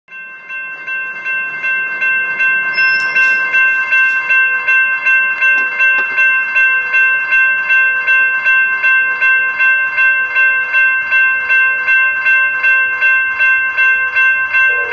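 Railroad grade-crossing warning bell ringing in a steady, even rhythm of a little over two strikes a second, fading in over the first few seconds.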